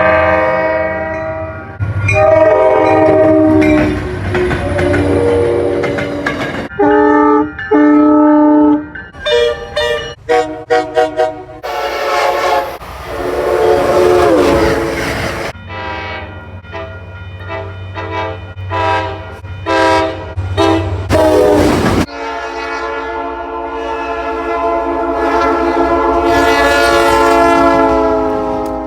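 Train horns with several tones sounding together, one after another with abrupt changes between them: long blasts, strings of quick short toots, and one horn that drops in pitch as it passes about halfway through. A long held blast comes in the last quarter.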